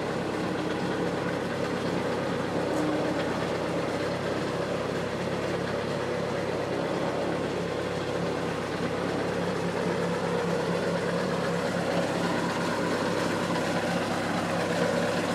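Engine of an Argo amphibious ATV on rubber belted grouser tracks, running steadily at a constant pitch.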